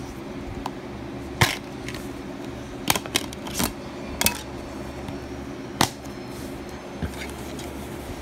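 Plastic DVD case clicking and snapping as it is opened and the disc is pried off its centre hub: about seven sharp clicks, the loudest about a second and a half in and near six seconds. A steady low hum runs underneath.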